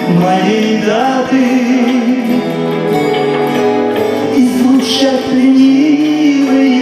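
Live band playing a song, with a wavering melody line over the accompaniment.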